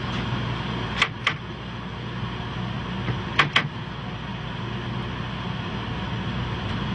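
Shinkansen 500 series high-speed train running at speed: a steady rumble and low hum. Two pairs of sharp clicks cut through it, about a second in and again about three and a half seconds in.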